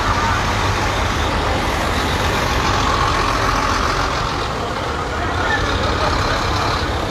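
Steady outdoor street ambience: traffic rumbling, with people's voices in the background.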